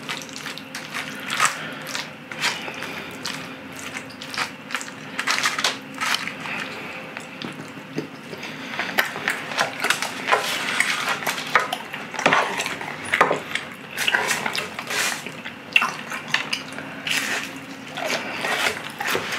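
Close-up wet chewing of saucy chicken, rice and udon noodles, and of fried pork cutlet near the end, mixed with many small clicks and taps of chopsticks and a spoon against a foil tray.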